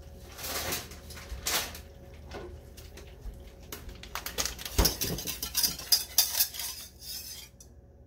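Wire whisk clinking and scraping against the sides of a small metal saucepan as melting cream cheese and butter are whisked, with a few separate clinks first, then fast, dense strokes from about halfway in until shortly before the end.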